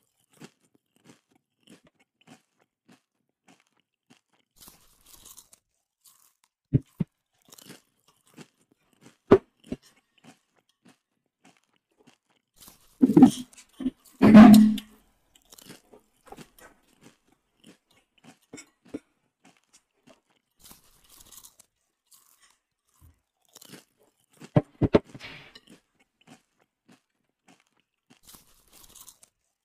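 Chicken feet being chewed close to the microphone: scattered small crunches and sharp single cracks. A louder run of crunching comes about halfway through, and another a few seconds before the end.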